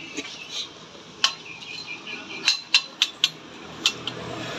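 Light metallic clinks of steel parts knocking together as a pipe shaft and gear assembly are handled, about six sharp ticks with a brief ring, most of them in the last two seconds.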